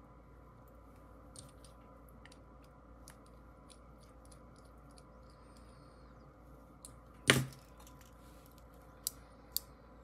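Small parts of a fidget toy being handled during assembly: faint scattered ticks, a louder knock about seven seconds in, and two sharp clicks half a second apart near the end.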